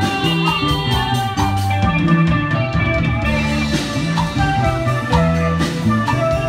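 Live band playing a Khmer wedding song on electric guitars, bass and drum kit, with a steady beat and cymbal strokes.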